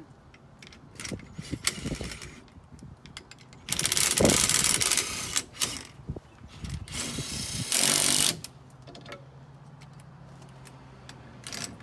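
Cordless drill running in bursts while it turns the threaded rods of a coil spring compressor on a truck coilover, compressing the spring: a short burst about a second in, then two longer runs of a second or two each in the middle.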